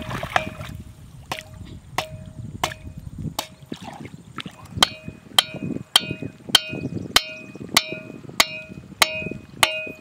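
A wooden stake being hammered into the riverbed, about one and a half blows a second. Each blow is a sharp knock with a short ringing note, over water sloshing around the legs.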